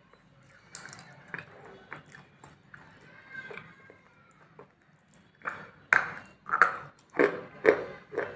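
Close-miked chewing and crunching in the mouth: soft, wet clicks at first, then about five loud, sharp crunches in the second half.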